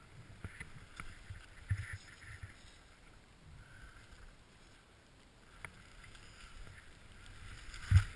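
Skis hissing and swishing through deep powder snow in irregular pulses as the skier turns, with a few sharp ticks and a heavier thump near the end.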